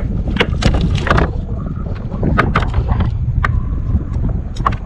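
Wind rumbling on the microphone out on open water, with a scatter of short, sharp knocks and clicks from gear being handled aboard a fishing kayak.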